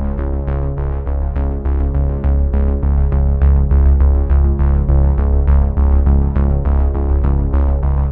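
Synthesizer-led electronic background music with sustained low notes and a steady pulse of about three notes a second.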